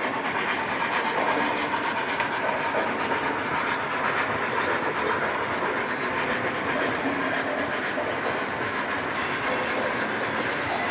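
O-gauge model trains running on the layout's track: a steady rolling rumble of metal wheels on rail with faint rapid clicking.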